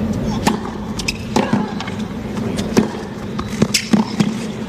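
Tennis rally on a hard court: a dozen or so sharp pops of the ball struck by rackets and bouncing on the court, at irregular intervals, over a steady crowd murmur.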